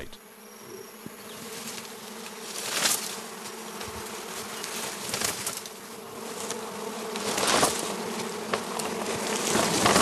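Flies buzzing steadily, the buzz swelling louder and fading again several times.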